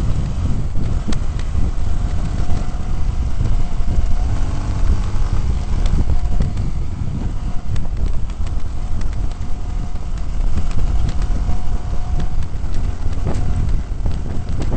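Off-road vehicle driving over rough ground: a steady low engine rumble with scattered knocks and rattles from the bumps, and wind buffeting the microphone.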